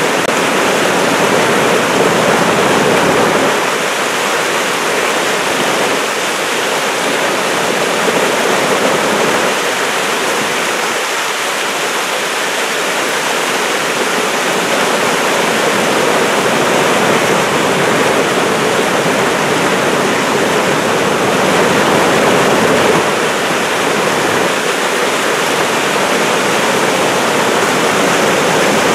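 River water spilling over a low dam and churning into whitewater below: a steady, loud rush.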